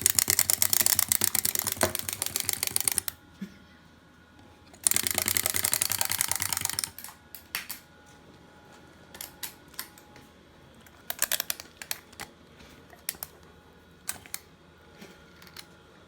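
Clockwork wind-up toys running: rapid, even clicking of the spring mechanism in two runs, the first about three seconds long and the second about two seconds long. Scattered single clicks and taps follow.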